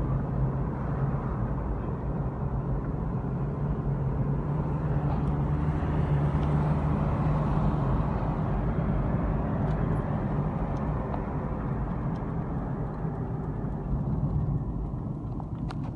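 Steady road noise inside a moving car: a low engine hum under the rush of tyres on the road.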